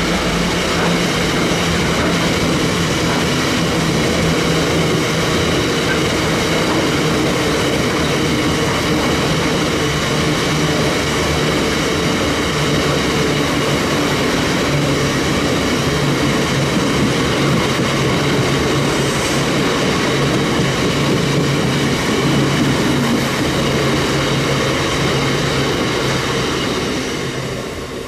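Diesel freight locomotive passing under power, with a steady engine note over the rumble of the train. The sound fades near the end.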